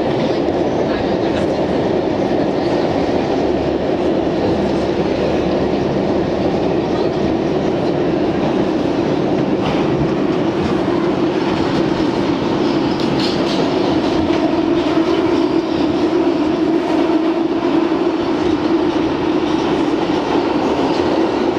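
R62 subway car running through a tunnel, heard from inside: a steady rumble of wheels on rail with a drone that grows a little stronger in the second half, and scattered clicks of the wheels over rail joints.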